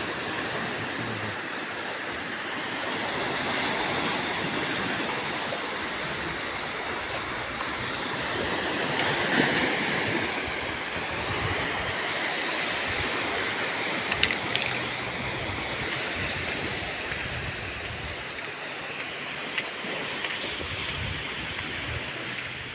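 Sea waves washing in at the shore, a steady rush that swells about a third of the way in and then eases, with a few brief sharp clicks.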